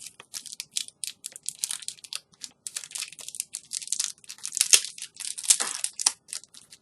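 Crinkly plastic packaging being handled and crumpled: a run of irregular crackles, loudest a little after the middle.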